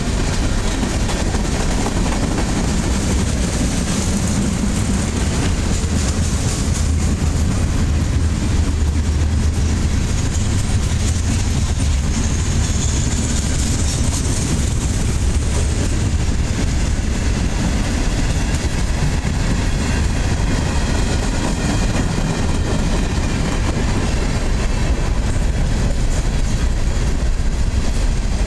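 Freight cars of a passing train rolling by: tank cars, flatcars and covered hoppers, their steel wheels making a steady rumble on the rails.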